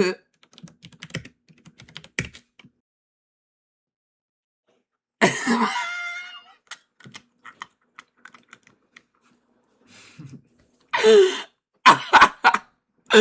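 Light, scattered computer keyboard clicks. About five seconds in comes a loud throat-clearing, and near the end a few short loud bursts from a person's voice.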